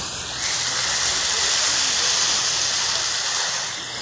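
Waterfall: a steady rushing hiss of falling, splashing water, growing louder about half a second in and easing slightly near the end.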